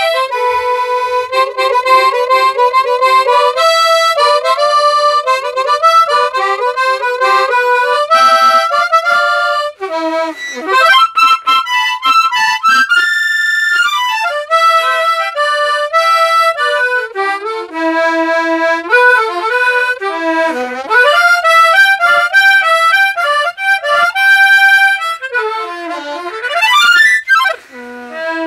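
Hohner Ocean Star harmonica played by a beginner: a continuous run of melody notes and chords, with a few short breaks between phrases.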